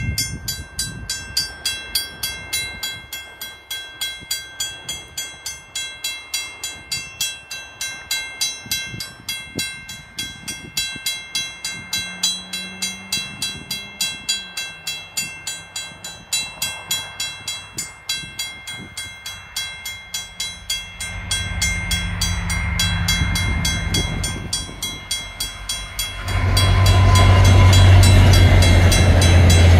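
A level-crossing warning bell rings about twice a second. Near the end, a VIA Rail EMD F40PH-2D diesel locomotive comes through the crossing close by, and its loud low engine drone swamps the bell.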